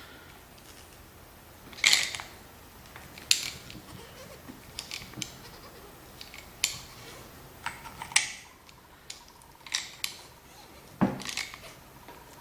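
Irregular metallic clicks and clinks of hand tools and parts of a hydraulic brake shuttle valve being handled as the valve is taken apart on a workbench, about a dozen short sharp taps with quiet gaps between them.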